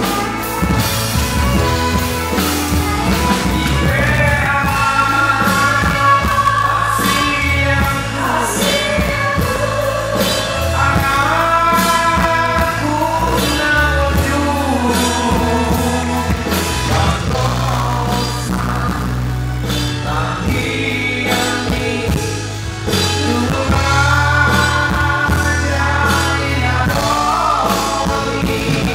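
A man and a woman singing a duet into microphones over live band accompaniment with bass and drums.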